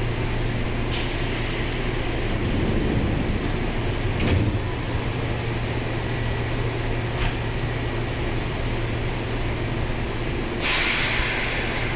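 Seibu 2000 series electric train standing with a steady low hum from its equipment. Compressed air hisses twice, about a second in and again, louder, near the end, and a sharp knock comes about four seconds in.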